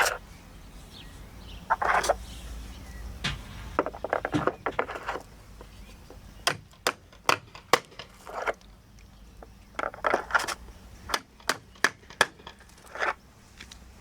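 A series of sharp taps and clicks, some coming in quick runs, with short scraping and crunching sounds in between, from the work of fixing polystyrene insulation boards with plastic fasteners.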